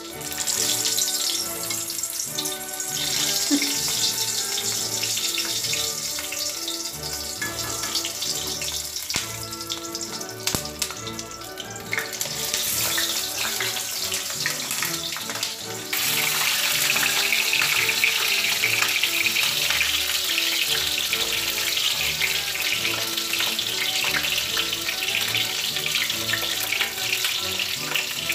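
Whole tomatoes sizzling as they fry in a steel kadhai while being turned with a metal spatula, over background music; the sizzle gets louder suddenly about halfway through.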